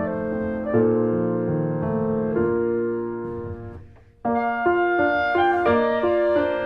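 Background piano music playing a slow melody; it fades out shortly before four seconds in and starts up again straight away.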